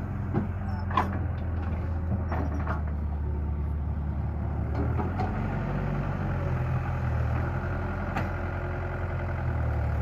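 Heavy diesel engine running steadily at low revs, with a few sharp clanks along the way.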